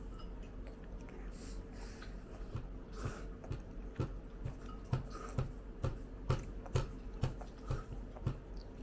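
Eating sounds: chewing with short, wet mouth clicks and smacks, about one or two a second, coming more often from about two or three seconds in, over a faint steady hum.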